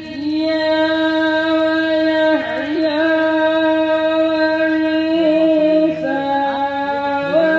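A solo voice singing devotional verses over a PA, holding long steady notes that shift in pitch every few seconds, in the style of a naat recitation.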